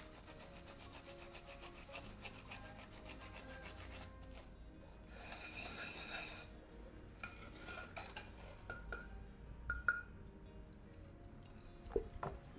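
A scouring pad scrubbing the burnt underside of a frying pan in a wet, gritty cleaning paste: a rapid rasping rub, louder for a stretch about five seconds in. Brief splashes of water near the end.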